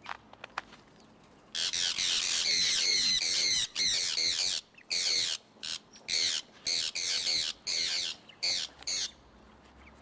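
Sun conures screeching: a long run of harsh, loud calls starting about a second and a half in, followed by a string of shorter screeches that stop near the end.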